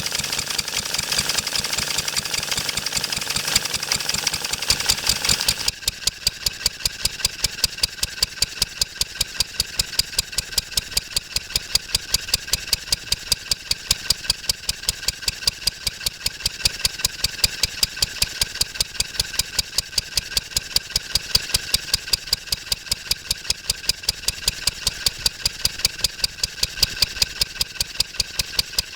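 1954 Wolseley WD8 single-cylinder stationary engine running steadily with an even, rapid beat. About six seconds in, a layer of background noise suddenly drops away and the engine's beats stand out more clearly.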